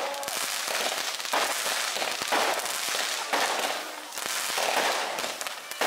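Goldfish fireworks (suichū kingyo hanabi) darting across the water's surface, giving a dense hissing crackle with many quick sharp pops.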